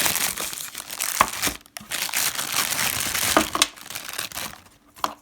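Packaging crinkling and crackling as it is handled and unwrapped, in two long spells with a short break between them, with a few sharp clicks.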